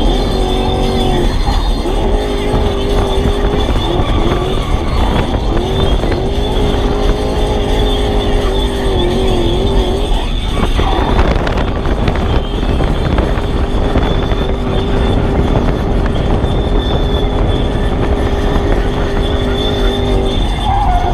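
Toyota 1UZ V8 engine in a Nissan S13 drift car, heard from inside the cabin while driving on track, its note wavering up and down with the throttle and breaking off and dipping briefly about ten seconds in before settling to a steadier pull.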